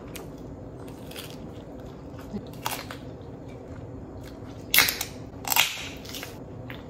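Crunching bites and chewing of a crisp tostada with small crackles, then two short, sharp hissing snaps about five seconds in as a drink can is cracked open.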